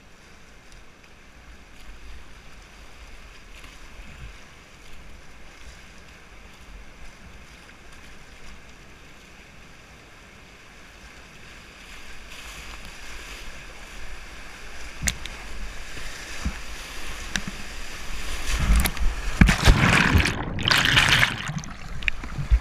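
Whitewater rapid rushing around a kayak, the water noise building about halfway through. Sharp knocks and heavy splashes of paddle strokes and waves hitting the boat are loudest near the end.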